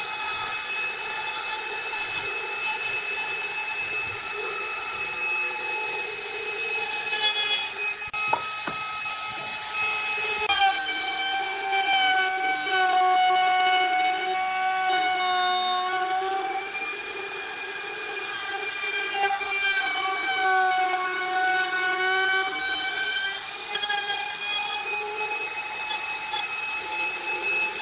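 Electric woodworking power tool running with a steady high whine while cutting wood; its pitch sags twice, about ten seconds in and again around twenty seconds, then comes back up.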